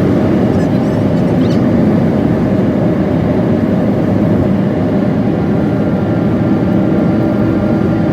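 Steady road and engine noise of a car driving, an even low noise that holds unchanged throughout.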